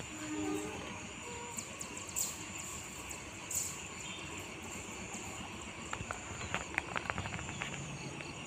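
Distant diesel locomotive of an approaching passenger train running with a steady low rumble. A quick run of sharp clicks comes about six to seven and a half seconds in.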